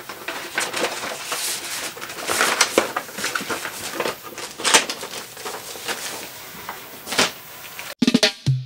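Plastic wrap crinkling and cardboard packaging rustling and scraping as a statue box is pulled out of a shipping carton, in irregular handling noises. Music with a beat starts near the end.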